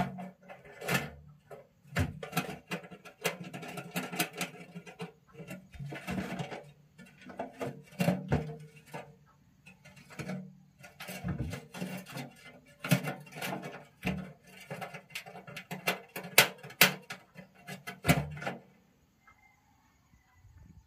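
A rodent moving about inside a metal wire-mesh cage trap, rattling and clicking against the wire in quick irregular clatters. The clatter stops about eighteen seconds in.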